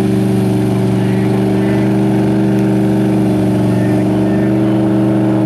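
Mega truck's engine running at a steady speed, a constant drone with no revving, while the truck sits stuck in the mud.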